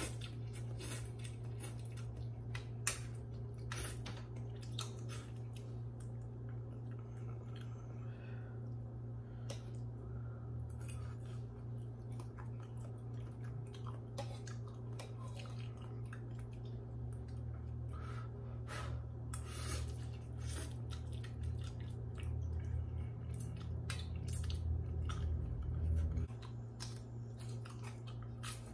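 A person eating instant noodle soup: slurping noodles and chewing, with many short wet clicks and crunches. Under it runs a steady low hum, which grows louder and then stops suddenly near the end.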